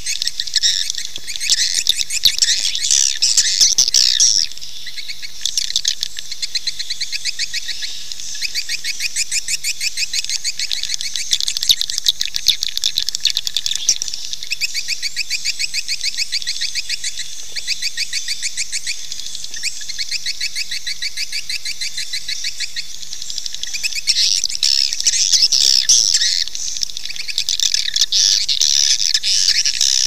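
Swiftlet call recording used as a lure to draw swiftlets into a nesting house: dense, rapid high-pitched twittering chirps, louder in the first few seconds and again over the last several seconds.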